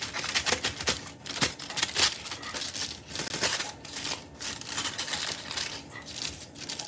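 Wrapping material crinkling and crumpling as it is handled, with irregular crackles and sharp clicks.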